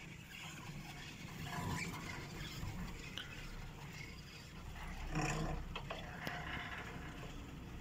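Detachable chairlift running: a steady low rumble with a few sharp clicks, and a brief louder sound about five seconds in.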